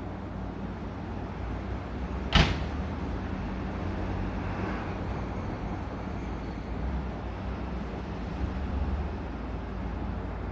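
Steady low electrical hum of a stationary Shin-Keisei Line electric train's onboard equipment. One sharp knock comes about two and a half seconds in.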